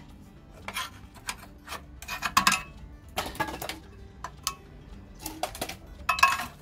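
Flat-blade screwdriver prying and scraping at the crumpled metal remains of a worn subframe bushing in a car's steel subframe. Irregular metal scrapes and clinks come in short bursts every second or so.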